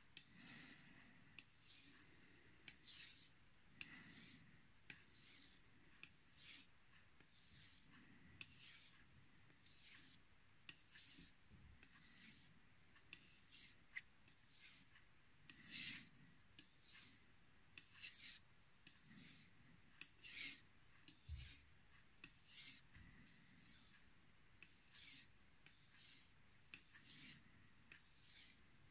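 Knife blade stroked freehand over a wet 2000-grit Chinese natural whetstone covered in slurry: a faint, soft scrape with each stroke, repeating in a steady rhythm of roughly one stroke a second or a little faster, alternating between the blade's sides.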